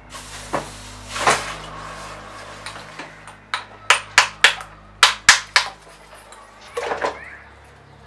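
A freshly cast hammer being freed from its mold: scraping and rattling as it is pulled out, then a quick series of about seven sharp knocks, roughly three a second, as the mold material is knocked off it, and a last clatter near the end.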